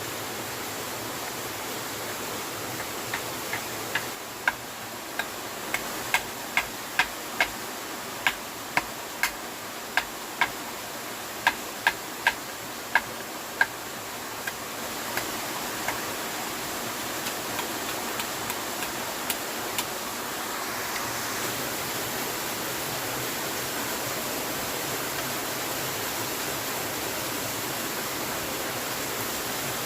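Steady rush of water, with a run of sharp knocks about two a second from about three to fourteen seconds in, then a few fainter ones.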